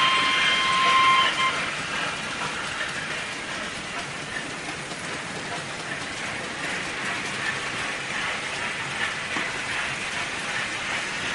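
HO-scale Märklin model freight train of loaded log wagons rolling along the track, a steady clatter of small wheels over rail. A steady horn tone carries on from before and cuts off about a second and a half in.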